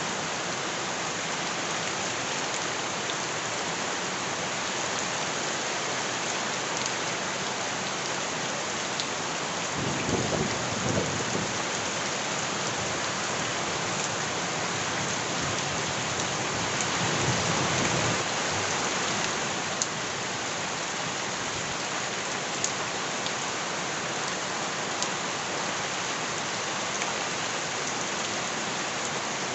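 Steady heavy rain hissing on surfaces, with scattered sharp drip ticks. Two low rumbles swell up briefly, about ten seconds in and again around seventeen seconds in.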